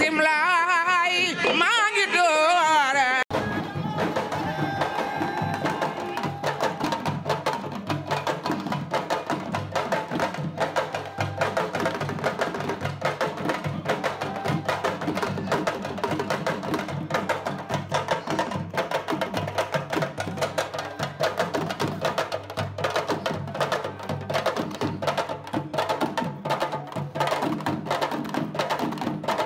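A short warbling electronic intro sting cuts off about three seconds in. It gives way to a group of hand drums playing a fast, dense rhythm of many strokes.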